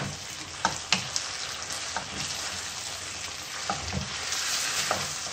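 Sliced onion, capsicum and tomato sizzling in a frying pan as a wooden spatula stirs them, with a steady hiss and a few short knocks of the spatula against the pan.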